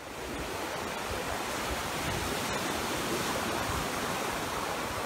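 Ocean surf breaking and washing up the beach: a steady rushing of water that fades in at the start.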